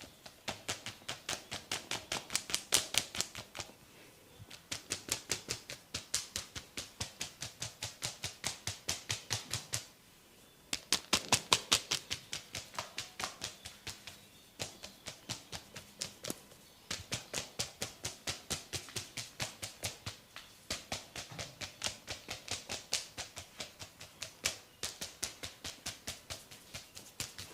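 Rapid, even percussive hand tapping of an Indian head massage, about six crisp slaps a second, in runs of a few seconds with short pauses between; the run a little before the middle is the loudest.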